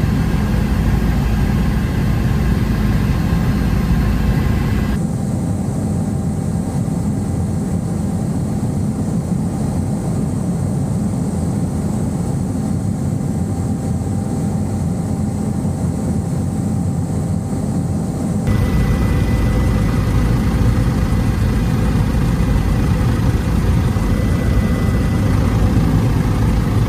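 Helicopter cabin noise in flight: a steady, loud drone of engine and rotor with a thin high whine. About five seconds in the sound turns duller and loses the whine, and it comes back brighter about two-thirds of the way through.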